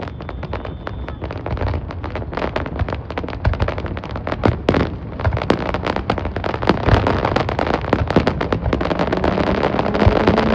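Fireworks going off in a dense, continuous barrage of bangs and crackles, many reports a second, growing louder toward the end.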